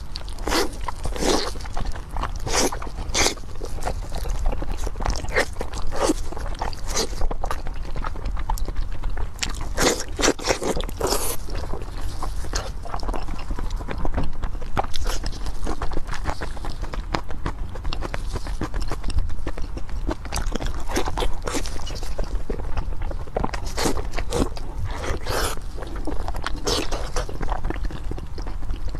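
Close-miked eating sounds: biting into and chewing large pieces of skin-on braised pork belly, many short bites and chews coming in spells at irregular spacing.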